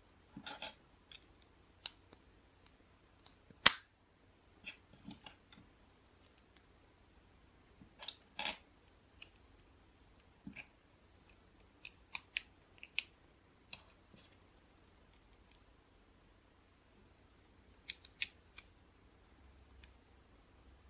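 LEGO bricks clicking and clattering as pieces are handled and pressed together, in scattered sharp clicks with quiet gaps between them; the loudest click comes about four seconds in.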